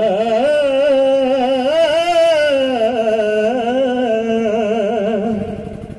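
A singer holds one long, wavering note with heavy vibrato, drawn out without words. The note rises about two seconds in, eases back down and fades shortly before the end. It is the wordless opening of a Marathi gaulan, a devotional bhajan song.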